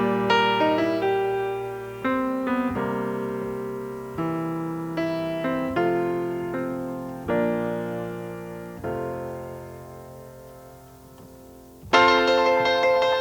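Solo piano playing a slow piece of film music: notes and chords struck every second or two, each fading away, with one long chord dying out before a louder chord near the end.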